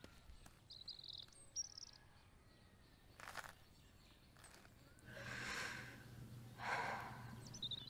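Quiet outdoor ambience with a few bird chirps, then two long breathy exhalations, the first about five seconds in and the second about a second and a half later, like a person catching their breath.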